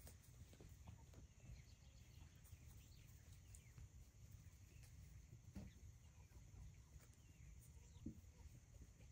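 Near silence: faint outdoor ambience with a steady low rumble and a few soft, scattered calls and pecking sounds from hens.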